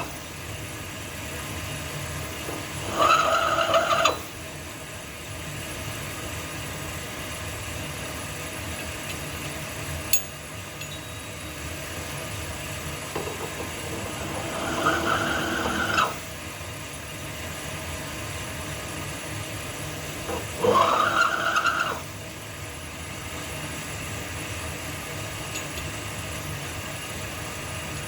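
A small power tool spins up and runs in three short bursts of about a second each, chamfering the small-end pin bores of Ford 302 connecting rods. A steady low shop hum runs underneath.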